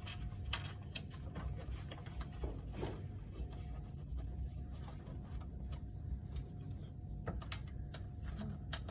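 Scattered small clicks and scrapes of a screw being refastened into the screen mount, over a steady low hum.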